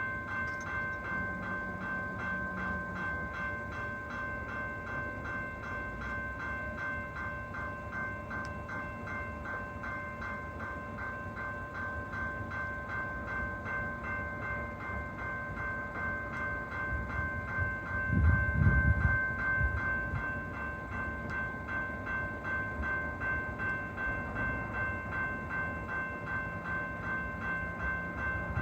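Commuter train with a warning bell ringing rapidly and evenly, about two to three strokes a second. A loud low rumble swells briefly about two-thirds of the way through.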